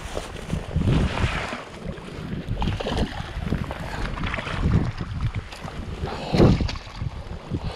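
Wind buffeting the microphone in uneven gusts, with water splashing as a hooked brown trout thrashes at the surface and is scooped into a landing net.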